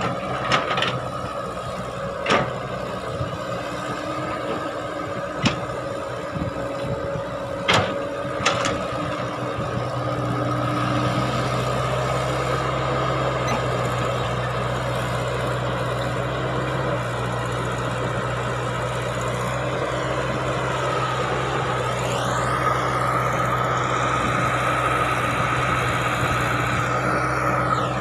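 Caterpillar crawler excavator's diesel engine and hydraulics running while it digs, with several sharp knocks in the first half. The engine then pulls harder and steadier as the loaded arm lifts and swings, and a whine rises about three-quarters of the way through and then holds.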